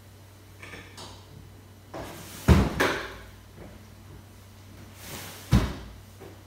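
Manual recliner mechanism of a leather reclining sofa: a loud clunk about two and a half seconds in as the footrest comes out, then a second clunk about three seconds later as the back is pushed down to lie almost flat.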